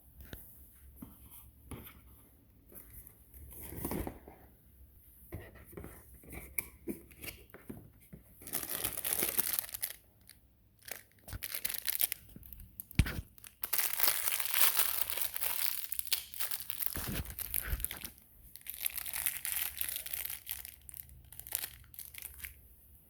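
Packaging being torn open and crinkled in several irregular bursts, with one sharp knock partway through; the wrapping of a dog treat being opened.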